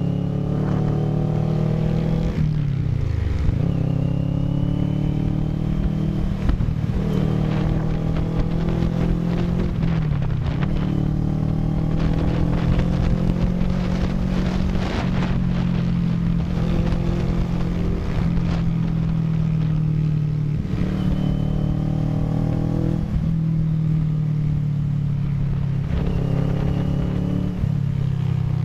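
CFMoto NK400 motorcycle engine running under way. Its pitch climbs through the revs and drops sharply at each gear change, several times over.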